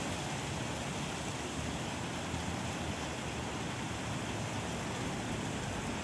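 Wind blowing steadily through palm trees, a continuous rushing with a low rumble of wind buffeting the microphone.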